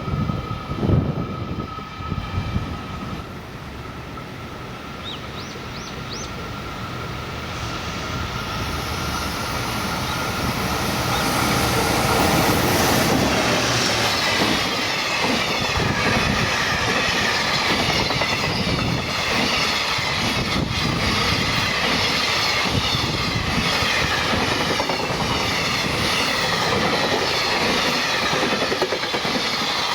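Electric-locomotive-hauled freight train passing on the main line, its wagons rumbling and clattering over the rail joints. The sound swells over the first dozen seconds and then holds steady and loud as the long train of wagons rolls by.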